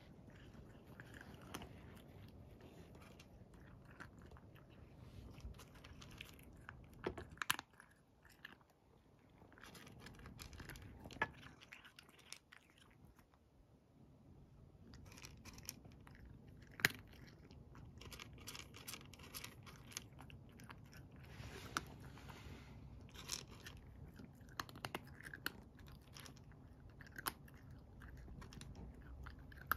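A cat crunching and chewing dry kibble in irregular bursts of small crunches, pausing twice briefly in the first half.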